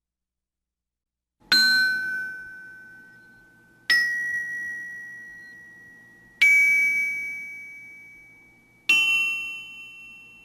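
Bell tones: four single strikes about two and a half seconds apart, starting about a second and a half in. Each strike is higher in pitch than the last and rings out and fades before the next.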